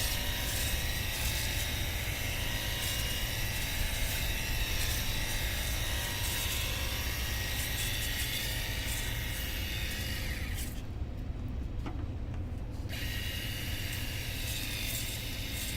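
Cordless pressure washer running, its electric pump motor whining steadily while the straight jet from the red nozzle sprays a hard surface. The whine and spray hiss break off for about two seconds roughly two-thirds of the way through, then resume.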